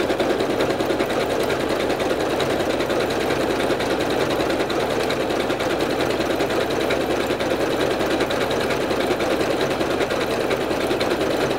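Janome MC9400 computerized sewing machine running steadily at speed, stitching a decorative stitch through fabric and stabilizer with its walking foot fitted; a fast, even mechanical chatter.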